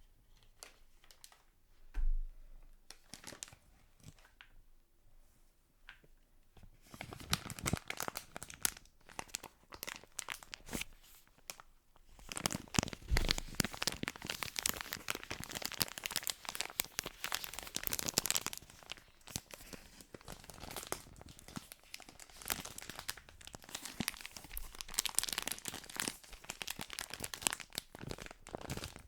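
Faint scattered ticks with a soft low thump about two seconds in. From about seven seconds in comes dense, continuous crinkling and crumpling of a crinkly material being scrunched and handled.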